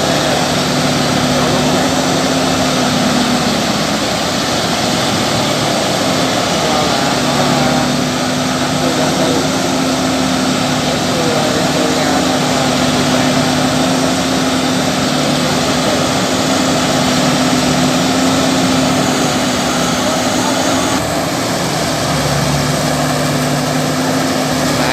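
Engines of farm machinery running steadily under load, with a steady hum over heavy mechanical noise, as a tractor works to pull a harvester out of mud.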